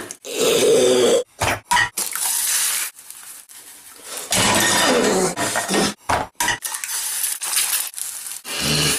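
Small non-stick frying pan jerked and scraped about on the metal grate of a gas hob: loud scraping stretches broken by a few short knocks.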